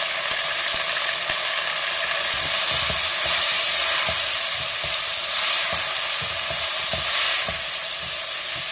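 Chicken pieces sizzling in hot oil in a nonstick wok as ground masala spice is stirred in with a wooden spatula. The sizzle swells several times as the pieces are turned.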